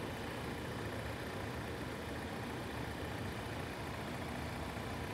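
A car engine idling: a steady, low, unchanging hum.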